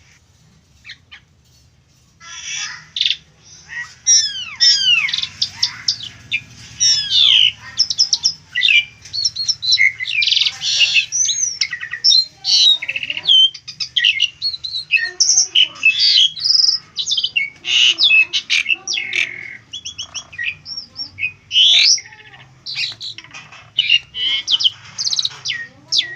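Asian pied starling (jalak suren) singing a loud, varied song of whistles, rising and falling glides and harsh notes, starting about two seconds in and going on with short pauses.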